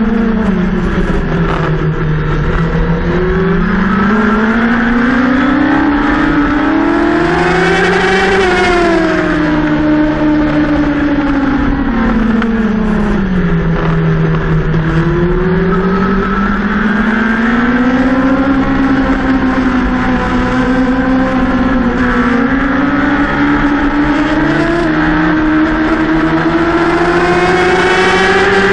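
Racing motorcycle engine heard from onboard at race pace, over low wind rush. The engine note climbs for several seconds, drops away for about five, then climbs again in a series of rises and falls as the rider accelerates and slows through the corners.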